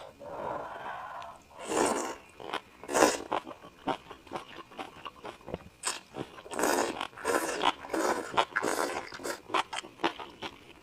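Close-miked mukbang eating of spicy hot pot and snail rice noodles: chewing and crunching with many short clicks, broken by several longer noisy stretches, the longest from about six to nine seconds in.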